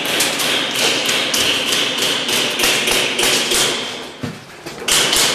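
Airsoft electric rifle firing on full auto: a fast, even train of sharp shots, about six or seven a second, over a steady whine. The shots break off briefly about four seconds in, then start again.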